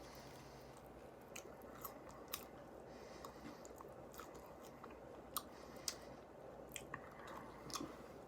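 Faint close-up chewing of fried chicken wings, with scattered small sharp clicks and crunches from the mouth and food over a low steady hum.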